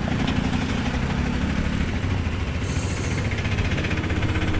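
Auto-rickshaw engine running with a steady, fast low chugging as the three-wheeler drives along, heard from inside its open cab.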